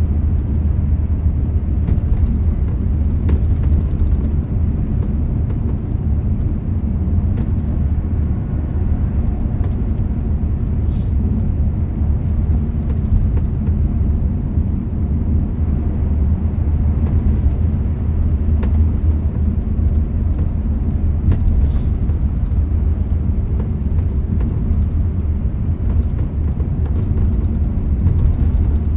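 Steady low rumble of a vehicle driving, engine and road noise with no sharp events.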